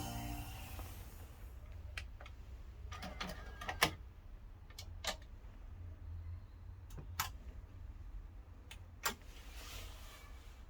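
Music cuts off at the start, leaving a low steady hum with a handful of scattered sharp clicks and knocks, the loudest a little before four seconds in, and a brief hiss near the end.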